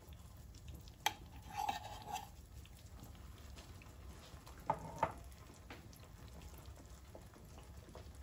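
Metal spoon stirring thick cornmeal porridge in a steel pot, with a few sharp clinks of metal on metal, one about a second in and two around five seconds in.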